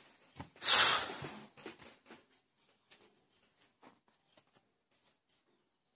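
Pen writing on paper: faint scratches and light ticks, after one short loud rush of noise a little under a second in.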